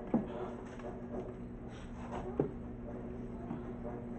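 Plastic handling noise from a speaker cabinet as the amplifier panel is worked loose and pulled out: two short, sharp squeaks falling in pitch, one right at the start and one a little past halfway. A steady low hum runs underneath.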